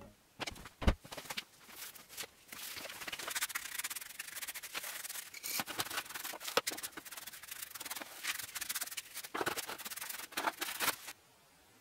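Hand scraper scraping metal chips and oily grime across the steel chip tray of a milling machine base into a dustpan, in irregular scratchy strokes. There is a sharp knock about a second in, and the scraping stops abruptly near the end.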